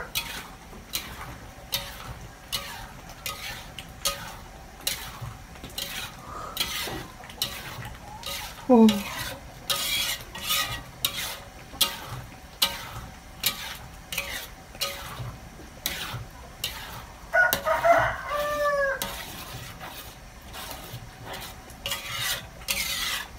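Metal spatula scraping and stirring rice simmering in water in a steel wok on a clay stove, in repeated strokes roughly two a second. A rooster crows about eighteen seconds in.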